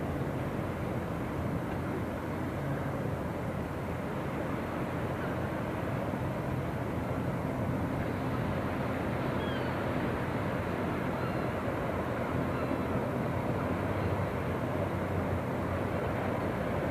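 Steady low engine rumble of a small motor boat under way, over a constant hiss.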